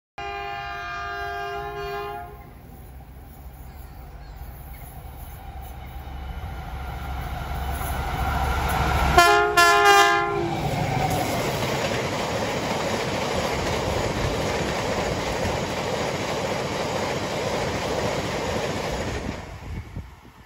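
Class 70 diesel freight locomotive sounding its horn for about two seconds, then a few short horn blasts about nine seconds in as it draws level. The engine rumble grows as it approaches, then the wagons rush and clatter past over the rail joints, dying away near the end.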